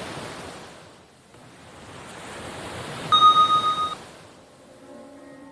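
Whooshing noise that swells and fades twice, then a loud bell-like ding about three seconds in, held for just under a second, marking the timer's start. Music notes come in near the end.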